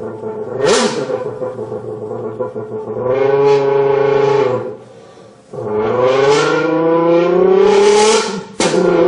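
A folded beer can blown through by mouth to imitate a Lamborghini V10: a buzzing, engine-like note that climbs in pitch like an engine revving. It breaks off twice, briefly, about five seconds in and again near the end.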